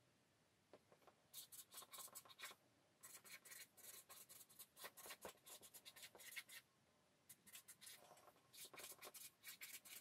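Felt-tip marker writing on a paper easel pad: faint runs of quick scratchy strokes, starting about a second in and broken by short pauses between words.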